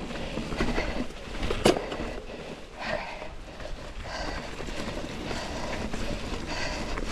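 Specialized mountain bike rolling along leaf-covered dirt singletrack: tyres crunching over dry fallen leaves and dirt, with the bike rattling over the ground. A sharp knock about a second and a half in stands out as the loudest sound.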